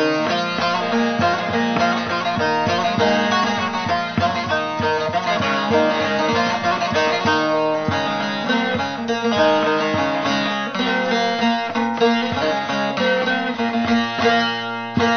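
Bağlama (saz), the long-necked Turkish lute, playing a tune in quickly plucked notes, with the strings ringing on under the melody.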